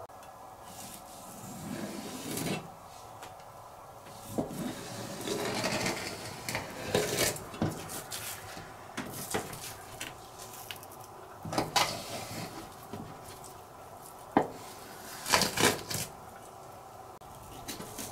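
Kitchen handling sounds as raw yellowtail fillets are moved about on a plastic cutting board: soft rubbing and shuffling, with scattered sharp knocks and clacks of the board and utensils, the loudest cluster near the end.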